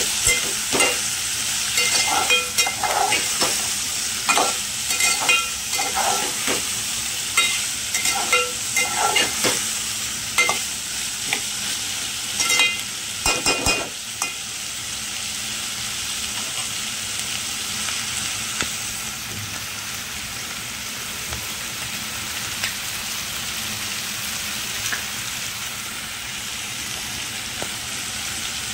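Chopped onions, capsicum and carrots frying in oil in an aluminium pan, with a steady sizzle. A spatula scrapes and clacks against the pan as the vegetables are stirred, and this stops about halfway through, leaving the sizzle alone.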